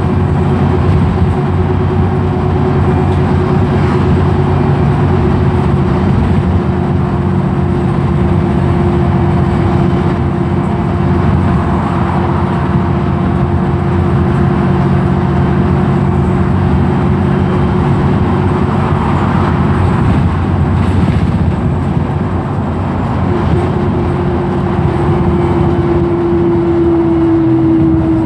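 Interior of a Wright Pulsar single-decker bus cruising at steady speed: engine and road noise with a steady whine that drops slightly in pitch near the end. The uploader calls the bus limping.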